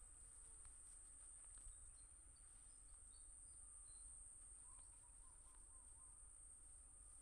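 Faint rural ambience: a steady high-pitched insect drone, with a few faint bird chirps and a short warbling bird call about five seconds in.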